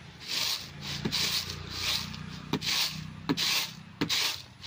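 Flattened rice (chira) being winnowed in a woven bamboo tray: rhythmic rasping swishes, about two a second, as the flakes slide and toss across the tray, with a few sharper taps of the tray.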